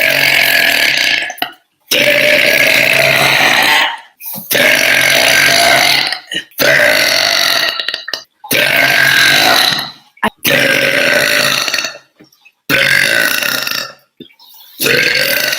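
A woman's deep, loud burps, about eight in a row, each lasting a second or two with short breaks between.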